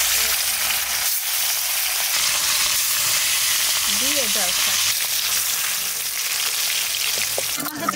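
Pieces of katla fish, rubbed with salt and turmeric, frying in hot oil in a wok: a loud, steady sizzle.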